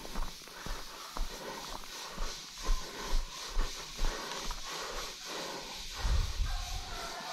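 Footsteps on brushy ground, about two a second, with hard breathing and rustling.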